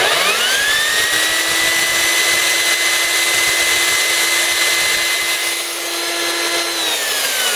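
A 4-inch portable band saw's electric motor running. Its whine climbs quickly as it starts, holds steady, then falls in pitch near the end.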